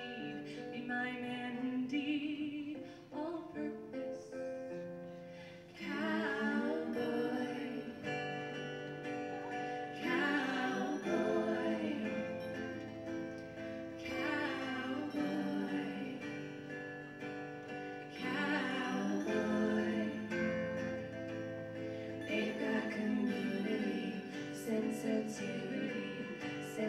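Live female vocal trio singing a song together, accompanied by strummed acoustic guitar and keyboard.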